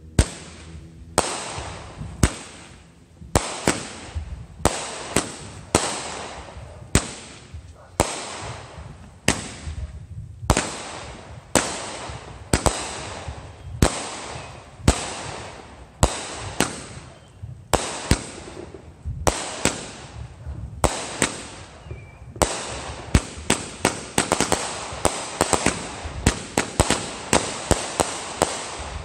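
A consumer fireworks cake firing aerial shots in sequence: a sharp bang about once a second, each trailing off in a fading crackle. About 22 seconds in, the shots speed up into a rapid volley of several bangs a second.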